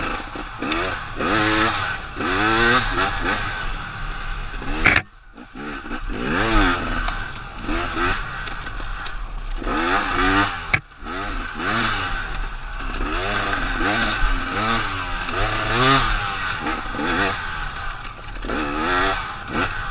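KTM 250 XC-W two-stroke single-cylinder enduro motorcycle ridden hard on a dirt trail, the engine revving up and down over and over as the throttle is worked. The engine note falls away abruptly about five seconds in, and again briefly near the middle.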